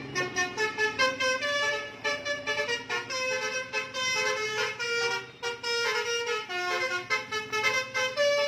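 Bus 'telolet' musical horn (basuri) playing a quick tune of short notes that step up and down in pitch, in several phrases with brief gaps.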